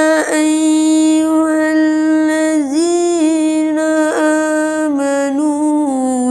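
A boy's voice reciting the Quran in tarannum style, drawing out one long melodic phrase on a held note, with a few brief ornamental turns in pitch.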